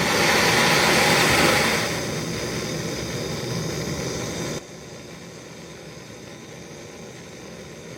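Gas blowtorch flame hissing steadily while it heats a fluxed copper pipe joint for soldering. It is loudest for the first two seconds, eases a little, then drops sharply to a quieter hiss a little over four and a half seconds in.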